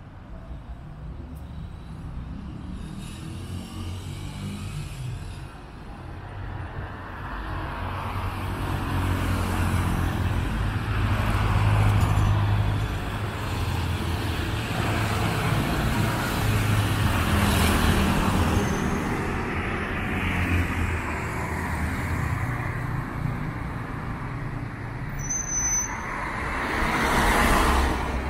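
City street traffic: motor vehicles passing with engine rumble and road noise, loudest in the middle. A brief loud hiss comes near the end.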